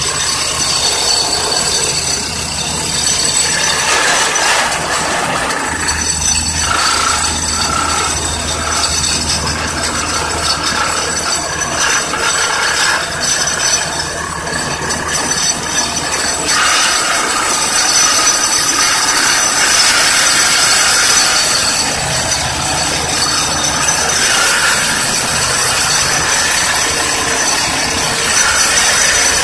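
Excavator-mounted hydraulic vibratory pile driver (vibro hammer) running, shaking a steel pile down into the ground: a loud, continuous grinding rattle with a high, steady metallic whine. It grows a little louder past the middle.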